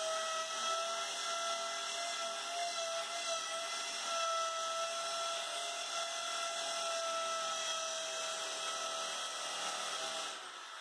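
Corded electric drill running steadily as it bores into a ceramic-tiled wall, a constant whine that stops near the end.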